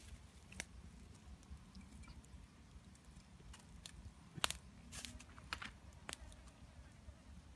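Sparse light clicks and rustles of hands turning fish on a stick grill over embers, with one sharper click a little past halfway, over a faint low rumble.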